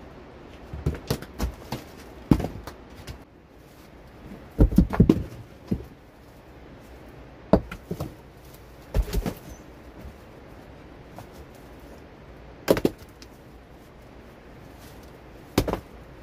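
Stones knocking and clunking against other stones as rocks are picked up and set down onto a dry-stone wall. Irregular single knocks and short clusters of them, a second or a few seconds apart, the loudest cluster about five seconds in.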